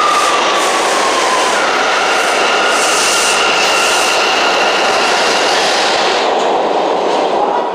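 R179 subway train running past along the platform, a loud rumble of wheels on rail with a high whine that sags slightly in pitch. Its last car goes by and the noise starts to die away near the end.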